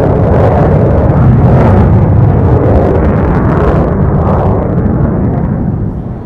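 Loud jet noise from an F-35 fighter's single F135 engine as it flies past: a heavy rumble with crackle on top, dying away near the end.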